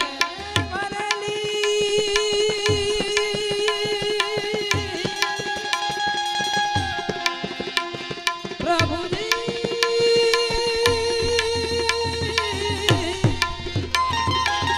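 Instrumental interlude of a devotional song: a harmonium plays long held melody notes, moving to a new held note about nine seconds in, over a steady tabla rhythm.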